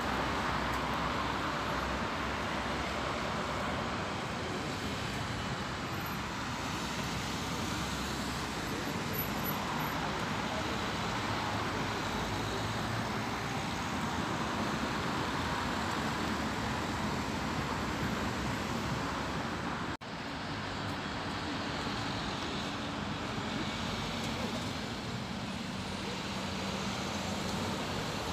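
Street traffic: city buses and cars passing, a steady mix of diesel engines and tyres. The sound drops out for an instant about two-thirds of the way through, then a bus engine's low hum comes up near the end.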